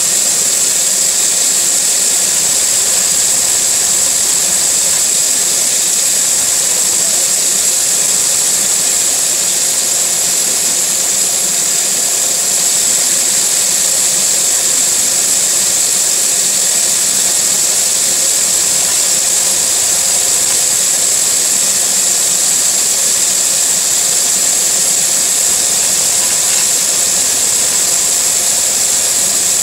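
Lego V4 vacuum engine running on suction from a household vacuum cleaner: a steady rush of air under a high, unchanging whine.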